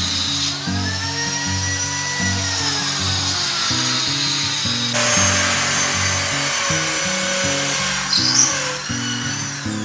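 Background music with a stepping bass line, mixed with a power tool running, its whine rising and falling in pitch and changing abruptly about five seconds in.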